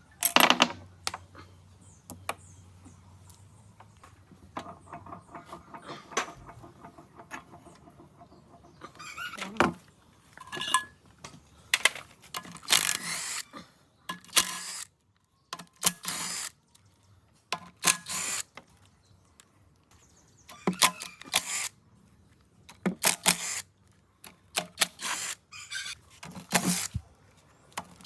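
Irregular knocks, clinks and short scraping sounds of metal engine parts being worked and handled, coming more often after the first few seconds.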